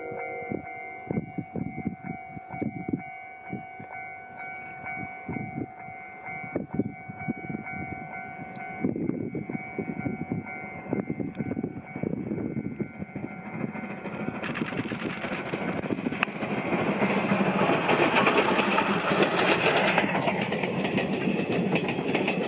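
Steam locomotive hauling a train as it approaches: a run of exhaust chuffs, then a rising rush of wheel and train noise that is loudest about three quarters of the way through as it passes close. A steady ringing tone sounds under the first half.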